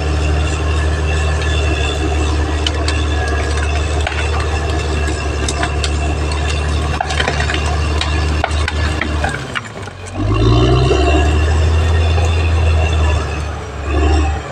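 Caterpillar D6R XL bulldozer running steadily, its diesel engine under load with metal track clatter and clicks; about ten seconds in the engine dips, then revs back up louder.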